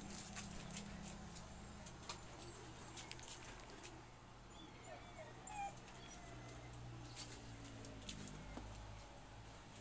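Husky whimpering faintly, a few short wavering whines about halfway through, among scattered light clicks.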